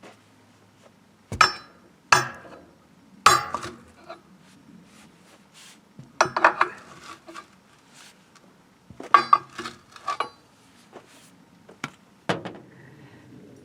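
Irregular sharp metal-on-metal clanks and clinks with a brief ringing tail, from steel tools and split-rim wheel parts being struck or handled. Single strikes come at first, then quick clusters of several clanks about six and nine seconds in.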